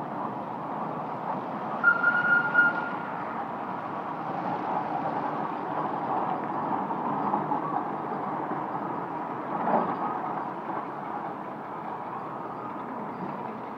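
Steam showman's road locomotive driving past on a wet street: a steady rumble and hiss of it running, with a short high whistle toot about two seconds in.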